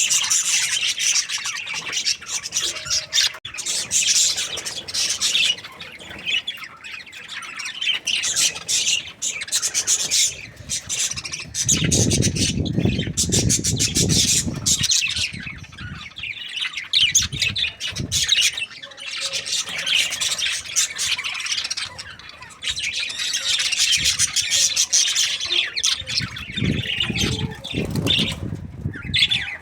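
A flock of budgerigars chattering, with constant high chirps and squawks. A low rumbling noise comes in twice, once near the middle and again near the end.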